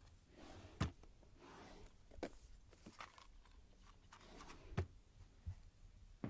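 Sparse, quiet foley: a few sharp knocks and clicks, the loudest about a second in and near five seconds, with soft rustling and swishing between them.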